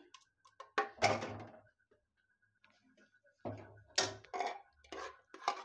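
A metal ladle scraping and knocking against an aluminium pressure cooker and a kadai as thick mashed pav bhaji vegetables are scooped out: a few short, separate scrapes and knocks, the loudest about four seconds in.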